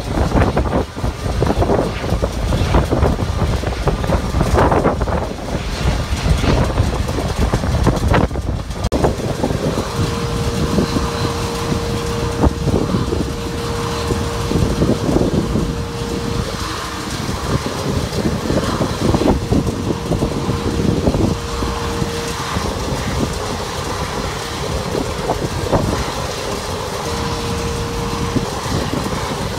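Steady loud rumble of airport ramp noise from running jet aircraft engines and ground equipment, with gusty buffeting in the first few seconds. A steady hum comes in about a third of the way through and drops out and returns a few times.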